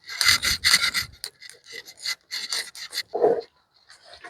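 Embers being scraped and raked across the hearth of a wood-fired stove. There are rough scraping strokes, densest in the first second, then several shorter scrapes and a short duller sound about three seconds in.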